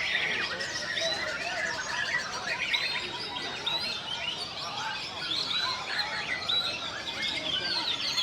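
Many caged songbirds singing at once in a bird-song contest: a dense, unbroken mix of overlapping whistles, trills and chirps from several birds.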